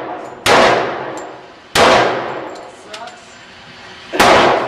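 Three 9mm pistol shots, unevenly spaced: two about a second and a quarter apart, then a gap of about two and a half seconds before the third. Each shot rings out and dies away slowly in the echo of an indoor shooting range.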